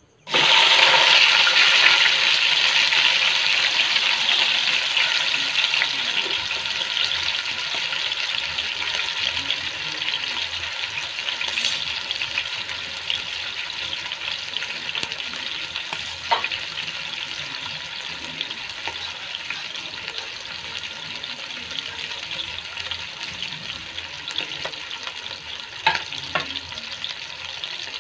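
A whole marinated stuffed chicken sizzling loudly as it goes into hot coconut oil in a pan, the sizzle slowly dying down as it fries. A few sharp clicks sound through it, about twelve, sixteen and twenty-six seconds in.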